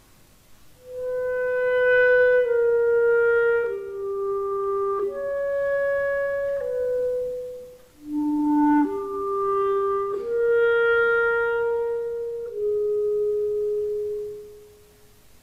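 Solo clarinet playing a slow melody of long held notes in two phrases: the first starts about a second in, the second begins on a lower note about eight seconds in and fades away near the end.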